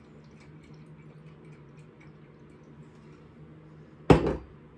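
Faint wet stirring of thick sauce in a pan with a wooden spoon, over a low steady hum. About four seconds in, a glass Worcestershire sauce bottle is set down with a sharp knock on the stone countertop.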